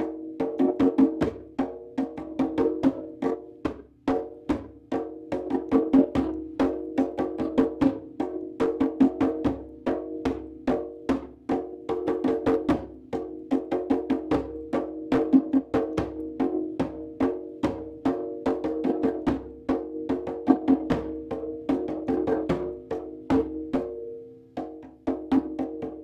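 Hand drum played in a steady, fast rhythm of about four strokes a second, with a ringing pitched tone sustained under the beats.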